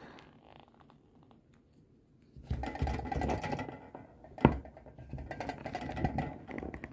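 Small plastic toy handled and pressed against a cloth-covered table: faint fiddling at first, then scratchy rubbing and rattling clicks from about two seconds in, with one sharp click midway.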